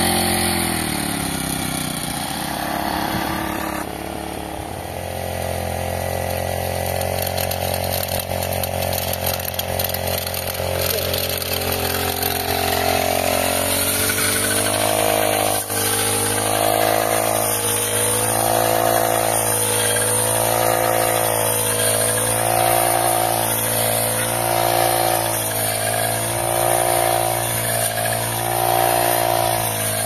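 Petrol brush cutter engine running just after being started, at first fairly steady, then revving up and down repeatedly from about halfway through as its blade cuts alfalfa.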